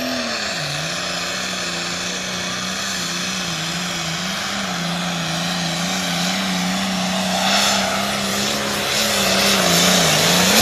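Super farm class pulling tractor's diesel engine running at full throttle under load as it drags the weight sled, a steady loud drone whose pitch wavers slightly and dips near the start and near the end. It grows louder in the last few seconds as the tractor comes past.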